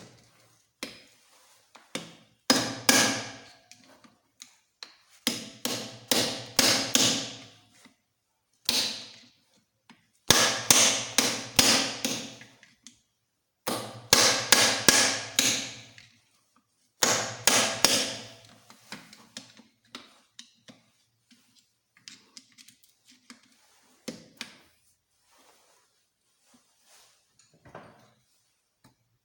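Hammer striking metal motorcycle engine parts in bursts of several quick blows every few seconds, each blow ringing metallically; light clicks of tools and parts follow near the end.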